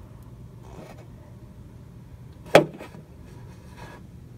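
A single sharp knock about two and a half seconds in, over a low steady hum, with faint rustling from handling.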